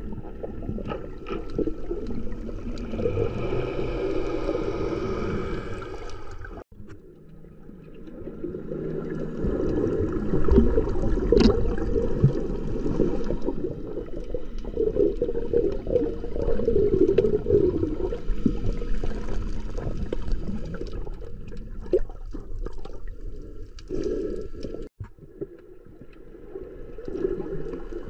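Muffled underwater sloshing and gurgling of water moving around a camera held under the surface while snorkelling, an uneven low rumble that drops out briefly twice.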